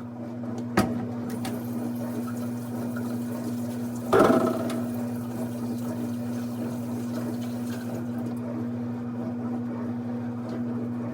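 A steady electrical hum from a kitchen appliance runs throughout. A sharp knock comes about a second in, and a louder clatter of cookware comes about four seconds in.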